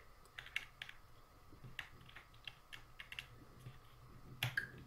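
Light, irregular plastic clicks and taps as a Thunderbolt 3 (USB-C) cable plug is handled and pushed into the side port of an HP Spectre x360 laptop, with the sharpest pair of clicks near the end.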